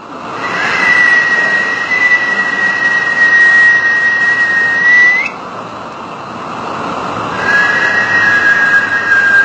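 Sound-therapy track being played: a loud rushing noise with a steady high whistling tone on top. The tone bends up and stops about five seconds in, leaving a softer rushing that swells again, and comes back a little lower after about seven seconds.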